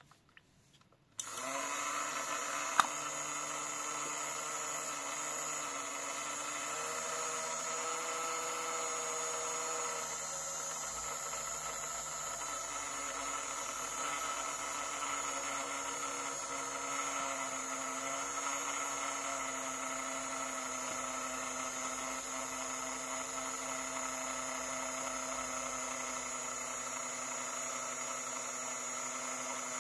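An electric machine, likely the washing machine's motor, starts abruptly about a second in and runs with a steady hum of several held tones, which shift slightly a few times. There is one sharp click shortly after it starts.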